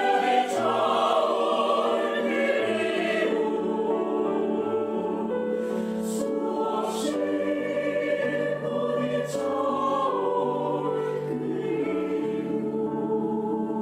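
Mixed choir of sopranos, altos, tenors and basses singing a Korean choral song in sustained, slowly changing chords.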